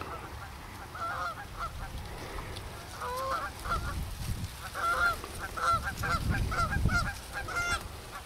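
Canada geese honking: a few scattered honks at first, then a quick run of overlapping honks from about three seconds in.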